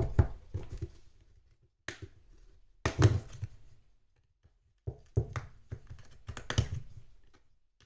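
Pry tool clicking and tapping against a phone's back cover as it is levered off: a scattering of short sharp clicks and knocks, the loudest about three seconds in and a quicker run of them in the last few seconds.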